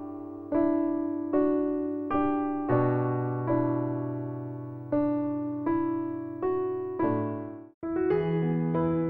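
Background piano music: single sustained notes struck slowly, each fading before the next. Near the end it drops out for a moment and comes back with quicker notes.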